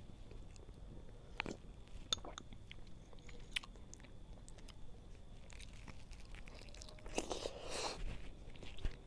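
Close-miked eating of chicken soup taken by spoon: chewing with a few sharp clicks, then a slurp from the spoon lasting about a second near the end.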